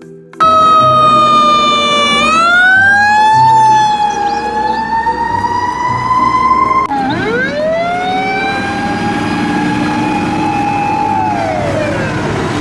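Fire engine siren wailing, its pitch sliding down, then up and on slowly higher; about seven seconds in it cuts off and a siren winds up from low, holds a steady pitch, and winds down near the end.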